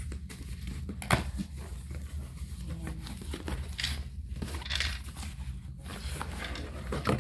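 Packaging rustling and crinkling as items are handled, with several sharp taps and clicks.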